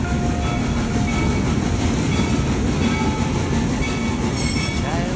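Steam train running along the track: a steady, loud rumble of the locomotive and cars rolling.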